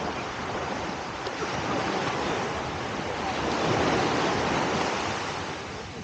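Sea waves washing in a steady rush that swells and eases gently.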